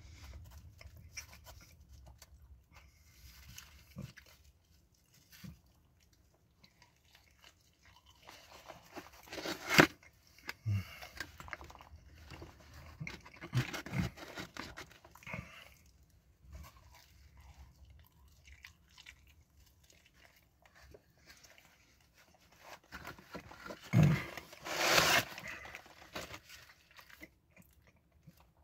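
A person chewing and biting into New York style crust pepperoni pizza close to the microphone, with soft crunching and mouth noises and a few louder sudden noises about ten seconds in and again around twenty-four seconds in.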